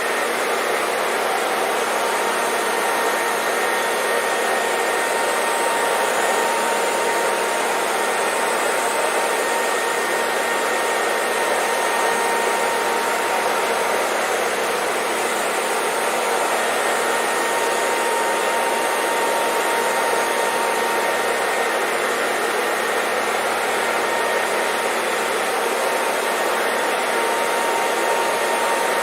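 Hair dryer blowing steadily: an even rush of air with a faint steady whine from the motor, unchanging throughout.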